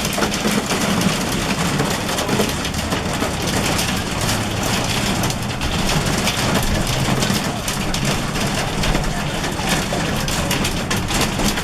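Hail pelting down hard: a dense, continuous clatter of countless small impacts, with a low steady hum beneath.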